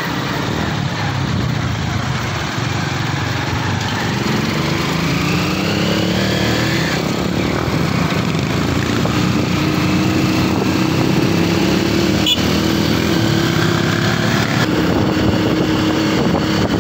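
Rusi Chariot 175 three-wheeler's small engine running while under way, heard from inside the cab. It revs up a few seconds in as the vehicle accelerates, then holds a steady note.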